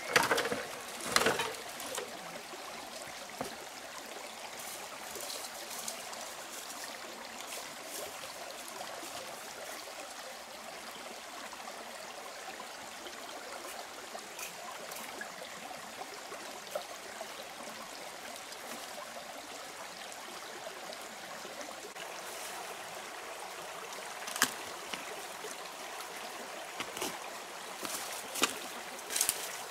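A stream running steadily, with a few short knocks of bamboo poles being handled, a cluster in the first two seconds and a few more near the end.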